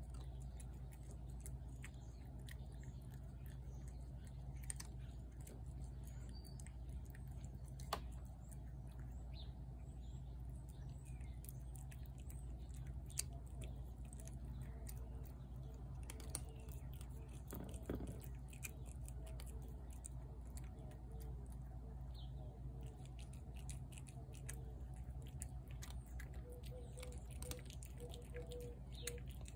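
A tabby cat chewing wet food from a plate: a faint, steady run of small wet clicks and smacks, with an occasional sharper click. Faint bird chirps sound now and then behind it.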